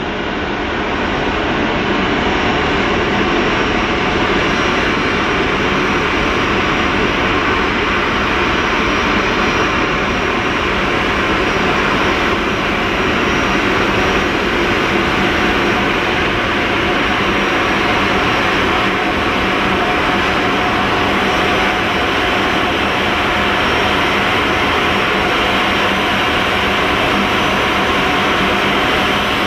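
Boeing 737's twin jet engines running at taxi power as the airliner taxis in to its parking stand: a loud, steady hum with a faint high whine, swelling over the first couple of seconds and then holding level.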